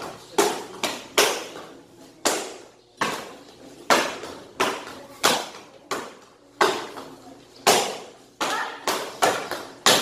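Taekwondo kicks slapping hand-held kick target paddles in a timed kicking drill. There are about fifteen sharp slaps, roughly one or two a second and sometimes in quick pairs, each with a short ringing echo.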